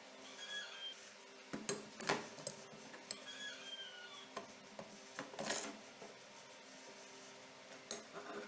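Steel axe-head parts being handled and laid on a wooden tabletop: a few scattered light knocks and clinks of metal on metal and wood, the loudest about two seconds in.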